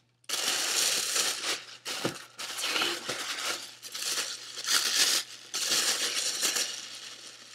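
Paper packaging being crinkled and rustled in repeated bursts with short pauses, as a shoe is unwrapped from its box.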